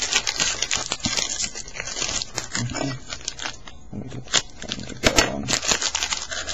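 Foil and plastic wrapper of a baseball card pack crinkling and tearing as it is opened by hand. The crinkling is dense for about the first three seconds, then thins to scattered crackles.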